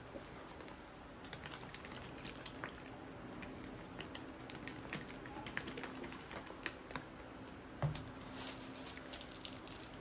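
A sealed plastic cup of boba milk tea being handled and shaken by hand: light plastic clicks and taps with some swishing, and one heavier knock about eight seconds in as the cup is set down on the desk.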